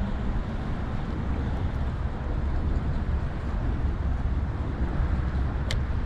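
Steady low outdoor rumble with a hiss above it, and one short click about three-quarters of the way through.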